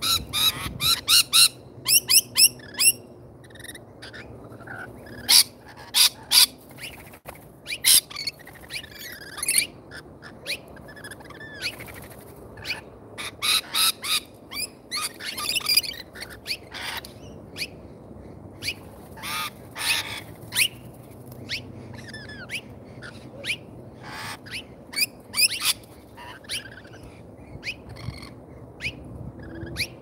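Rainbow lorikeets screeching and chattering in short, shrill calls that come in quick clusters throughout, some loud and some fainter, over a faint steady background.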